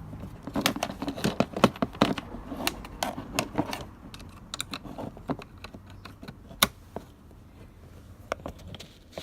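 Small metal bracket and plastic parts being handled and fitted to a door lock actuator: a run of sharp clicks and taps, dense for the first few seconds, then sparser, with one loud click about two-thirds of the way through.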